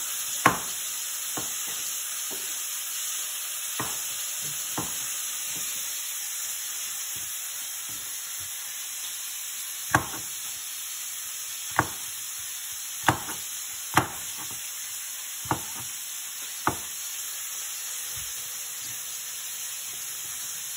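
Bacon sizzling in oil in a pot, a steady high hiss. Over it, a chef's knife taps sharply on a plastic cutting board as mushrooms are sliced, about ten irregular strokes that stop a few seconds before the end.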